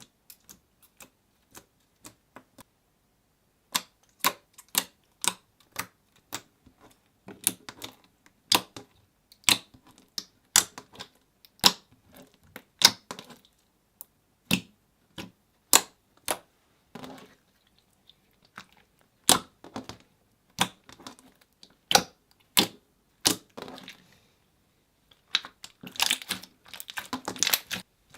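Clear slime being pressed and poked, making sharp, wet clicking pops about one or two a second, with a denser run of crackling near the end.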